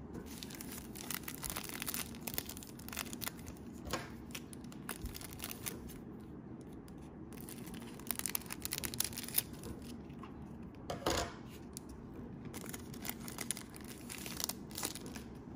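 Panini Prizm basketball cards being handled and slid against one another: irregular light swishes and clicks of card stock, coming in a few clusters.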